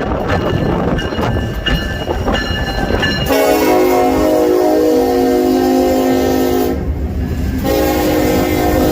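Freight train rumbling past with wheels clicking over rail joints; about three seconds in, a diesel locomotive's air horn sounds a long chord, breaks off for about a second, then blows again.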